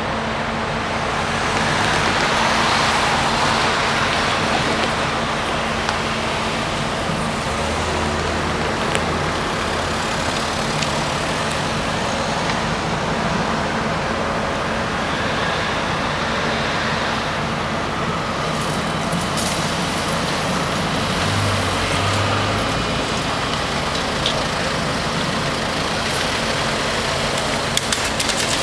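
Road traffic noise with a steady low engine hum underneath. A vehicle passing swells the sound about two to four seconds in.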